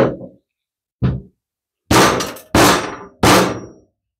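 Hammer blows on a socket set over a loose valve seat, driving the seat back into a Briggs & Stratton overhead-valve cylinder head. There are five metallic strikes: two lighter ones about a second apart, then three louder ringing blows about two-thirds of a second apart.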